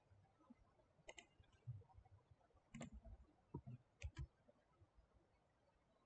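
Faint computer mouse clicks, a handful spread over a few seconds, some in quick pairs, with a few soft low thumps.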